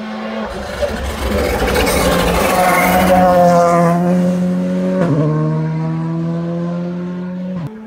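Rally car engine at high revs as the car comes down toward the bend, its pitch falling as it slows and passes, then a sudden drop in pitch about five seconds in before it pulls away under throttle. The sound breaks off abruptly near the end.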